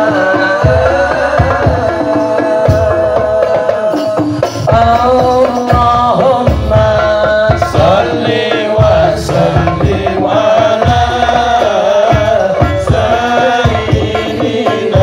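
Sholawat sung to hadroh frame-drum accompaniment: a voice singing long lines that bend in pitch, over a steady pattern of hand-drum strokes.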